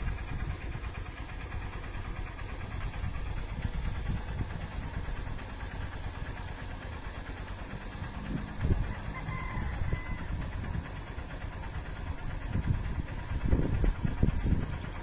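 Wind buffeting the microphone: a low, uneven rumble that swells in gusts about nine seconds in and again near the end.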